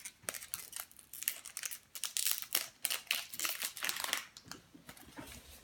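Foil Pokémon trading-card booster pack wrapper crinkling as it is opened by hand: a run of irregular crackles that thins out about four seconds in.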